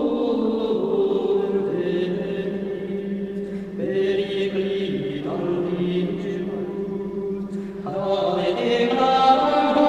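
Voices chanting in long held notes, the pitch shifting together about four seconds in and again near eight seconds.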